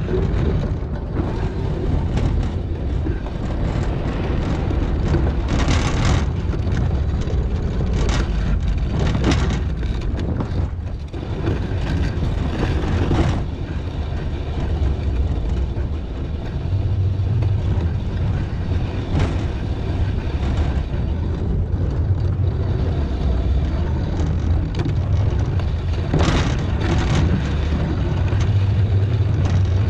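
A vehicle's engine runs steadily while it pushes a 16-foot Sno-Power plow through snow. Several brief rushes of noise rise over the low engine rumble.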